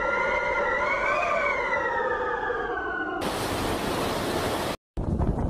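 A sustained pitched howl that wavers, rising and then slowly sinking, for about three seconds, then a sudden cut to the loud rush of typhoon wind on the microphone, broken by a brief dropout near the end.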